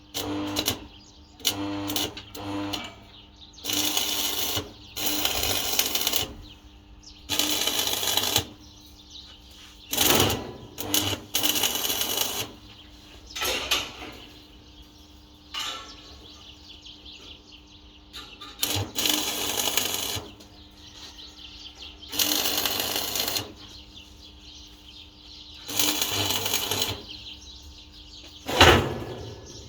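Metalworking in a workshop: a string of short bursts of harsh, hissing noise, each lasting about a second, with small clicks between them and a sharp metal knock near the end, over a steady low hum.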